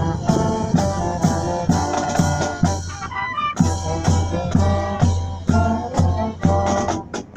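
Military marching band playing a march: saxophones, horns and sousaphone over a steady drum beat, with a short break in the sound just before the end.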